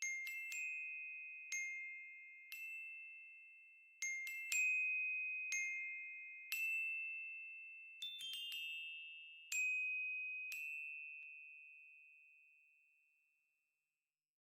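Sparse music of high, bell-like mallet notes struck one at a time, about one a second, each ringing and fading, with a quick run of notes about eight seconds in; the last note dies away to silence near the end.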